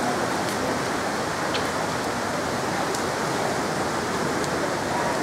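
Steady rushing water noise of an indoor swimming pool hall, with a few faint clicks.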